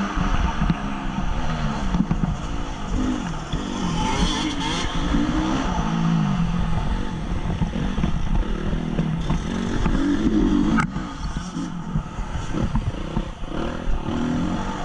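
2014 Honda CRF 250's four-stroke single-cylinder engine under race riding, the revs climbing and falling off again and again as the rider opens and shuts the throttle through the track. A sharp knock comes about eleven seconds in.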